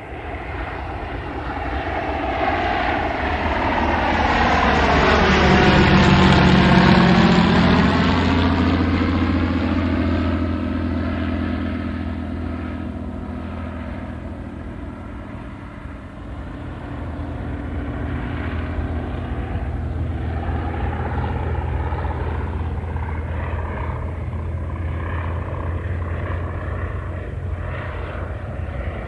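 Airplane passing overhead: its engine sound grows louder, peaks about six seconds in with a sweeping change in tone as it goes over, then fades. It swells again more gently later on.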